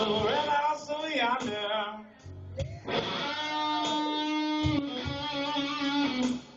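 Band music: an electric guitar plays lead with notes bent up and down, and one long held note about halfway through.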